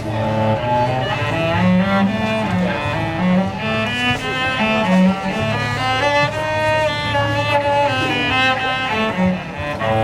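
Solo cello played with a bow: a melody of held notes, each changing after roughly half a second to a second.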